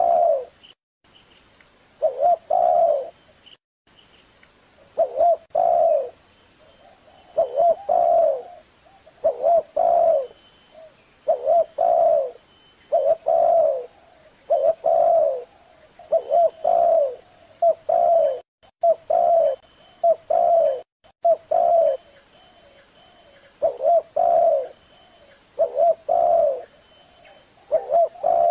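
Spotted dove cooing: short groups of two or three low coo notes, repeated every second or two.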